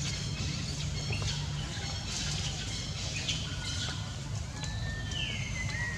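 Birds chirping in scattered short calls, with one whistled note gliding downward near the end, over a steady low hum.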